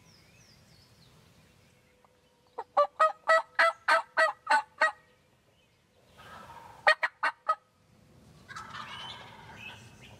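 Wild turkeys calling: a run of about nine evenly spaced yelps, then four quicker notes, and a tom's rapid rattling gobble near the end.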